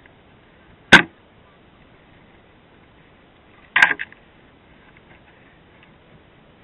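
Two sharp knocks about three seconds apart, the second a short rattling cluster, with no engine running.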